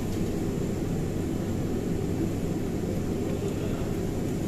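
Steady, deep roar of commercial kitchen background noise with no distinct events, and a faint steady high whine over it.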